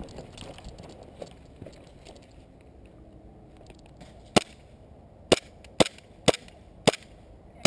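Airsoft gun firing single shots: five or six sharp snaps roughly half a second apart, starting a little past halfway through.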